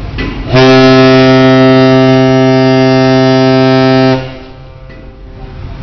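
A ship's horn sounding one long steady blast that starts about half a second in and cuts off sharply after roughly three and a half seconds, over a low steady rumble.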